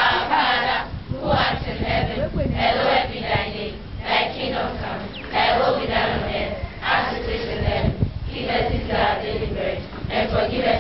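A large group of schoolgirls speaking together in unison, a prayer recited in a rhythmic chant, phrase after phrase about every second.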